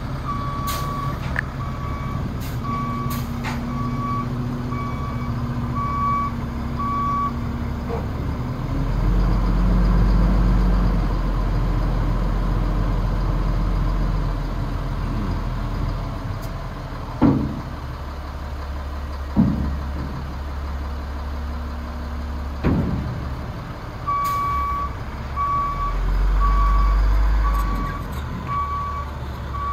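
A Freightliner FL70 dump truck's diesel engine running, its reverse alarm beeping steadily for the first several seconds and again near the end. In between, the engine runs louder for several seconds while the dump body is raised, and three sudden sharp sounds follow, then another louder stretch of engine as the truck moves.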